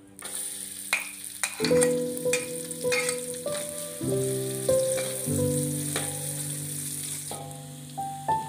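Sliced shallots and garlic sizzling in hot oil in a metal wok, stirred with a metal spatula that clicks and scrapes against the pan a few times early on. Soft background music with long held notes plays over it.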